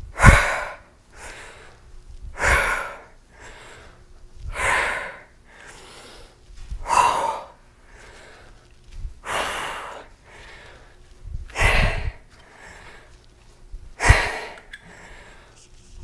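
Heavy, rhythmic breathing of a woman straining through a set of dumbbell squats: a strong, forceful breath about every two and a half seconds, seven in all, with quieter breaths between.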